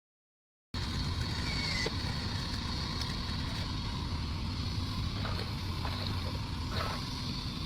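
RC scale truck driving, its motor and drivetrain running steadily with a low rumble and a high whine, plus a few faint clicks. It cuts in abruptly after a short silence.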